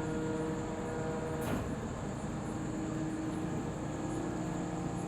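XCMG 500-tonne truck crane's engine running steadily with a constant hum, and a brief sharp click about one and a half seconds in.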